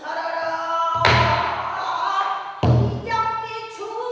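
A pansori singer's voice holding long, wavering sung notes, with the buk barrel drum struck twice, about a second in and again about two and a half seconds in.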